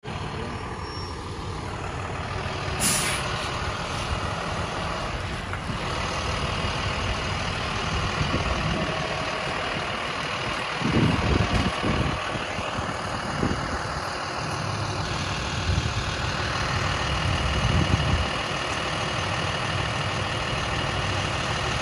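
Brink's armored truck running as it drives past and pulls up, a steady heavy-vehicle engine sound. A short sharp hiss comes about three seconds in, and a few louder low rumbles come midway.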